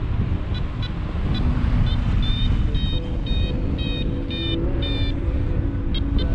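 Paragliding variometer beeping in short pulses, about two a second, with a brief pause near the end; the beeping is the vario's signal that the glider is climbing in lift. Under it, a steady rush of airflow on the microphone.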